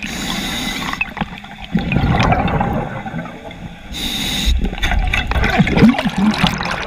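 Scuba regulator breathing heard underwater: a short hiss of inhalation at the start and again about four seconds in, each followed by the bubbling, gurgling rush of exhaled air.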